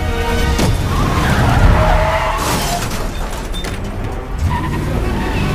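Car-chase sound effects: a heavy engine rumble and tyres skidding and squealing, with a sharp knock about half a second in, over a film score.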